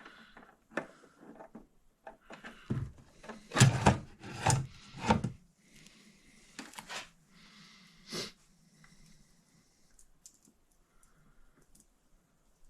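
Steel tool cart being opened and handled: a quick run of loud metal clunks and rattles, then a couple of single knocks and a few faint ticks.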